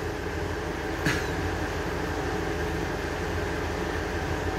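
Cat purring in a steady, evenly pulsing low rumble while kittens nurse, with one short soft noise about a second in.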